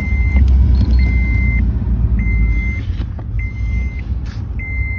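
Car's electronic warning chime beeping steadily, one short tone about every second and a quarter, with the ignition in accessory mode, over a steady low rumble.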